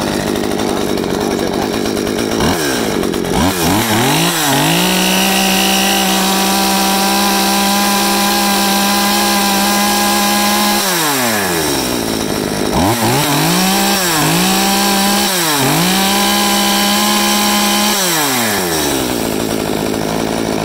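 Komatsu Zenoah G3500T 35cc two-stroke top-handle chainsaw idling, then revved up and held at high revs for about six seconds before dropping back to idle. It is then revved again, with two quick dips in pitch, and settles back to idle near the end, picking up revs quickly each time.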